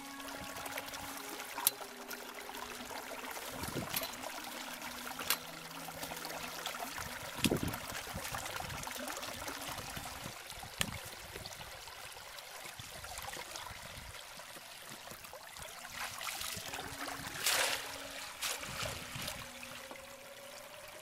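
Muddy water trickling steadily through a small channel cut in a rice-paddy bank, with a few sharp splashes and knocks.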